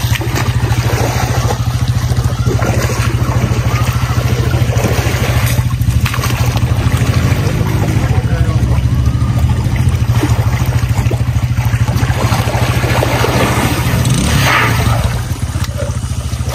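A steady low engine drone with a fast pulsing throb runs throughout, over water splashing and sloshing as an elephant rolls and bathes in a pool; the splashing is strongest about fourteen seconds in.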